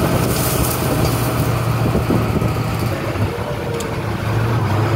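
Monster truck school bus driving along, its engine running with a steady low drone under a constant rumble of ride noise.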